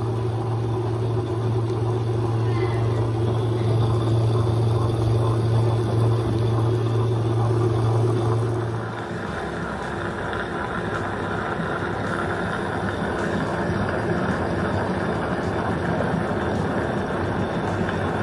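Premier Wonder 1.5-litre tabletop wet grinder running, its stone rollers grinding batter in the rotating stainless steel drum: a steady motor hum under a grinding rumble. About nine seconds in the low hum drops away and a rougher, higher grinding noise goes on a little quieter.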